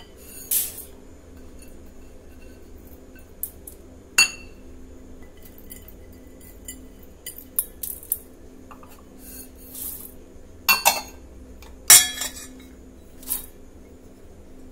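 Stainless steel bowls clinking against one another and against the countertop as lentils and almonds are tipped from small bowls into a larger one. The clinks come irregularly, a dozen or so, some with a short metallic ring, and the loudest fall near the end.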